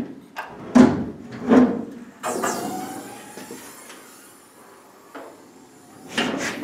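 Triumph Spitfire's steel tilting bonnet being handled and swung open: two heavy thumps about a second apart, then a longer scraping, creaking slide that fades over a couple of seconds, and another knock near the end.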